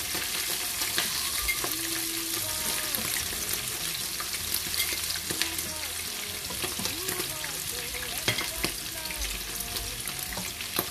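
Meat pieces sizzling in hot oil in a frying pan: a steady hiss with many small crackles and pops. There are occasional clinks of a slotted metal spatula as pieces are lifted out of the pan.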